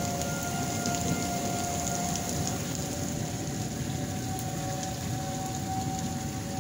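Heavy rain and strong wind in a thunderstorm, with the steady tone of an outdoor tornado warning siren sounding behind them.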